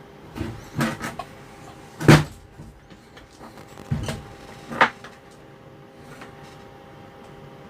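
A series of about six knocks and clunks of hard objects being handled, the loudest about two seconds in, then stopping; a faint steady hum runs underneath.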